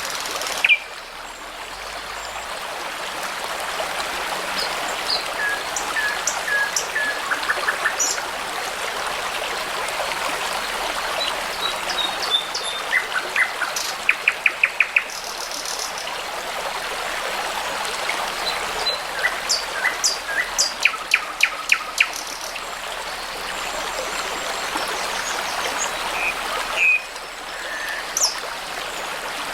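Songbirds singing over the steady rush of a babbling brook. The song comes in separate phrases of short whistled notes and quick trills of rapidly repeated notes, several phrases spread through, over the unbroken water sound.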